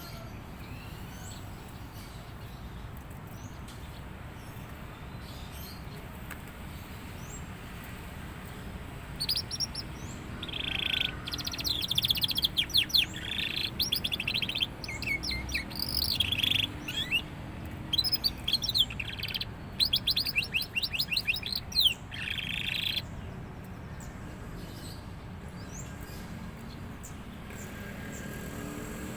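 Juvenile domestic canary singing a long bout of rapid trills and chirps, starting about nine seconds in and lasting about fourteen seconds, with only faint chirps before and after. The young bird is coming into full, frequent song.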